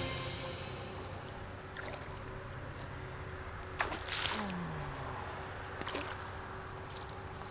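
Water splashing as a hooked carp is drawn over a landing net, with a sudden splash about four seconds in among a few light clicks and knocks.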